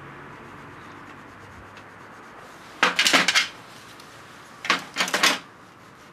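Scraping on the wooden hammer-handle blank: two short bursts of quick rubbing strokes, the first about three seconds in and the second near five seconds.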